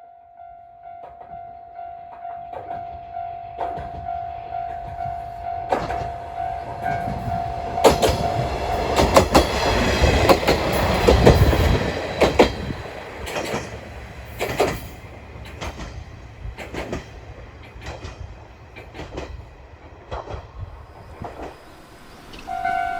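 Isumi Railway diesel railcar approaching and passing, its wheels clacking over the rail joints, loudest about ten seconds in and then fading away. A steady high tone sounds through the first nine seconds.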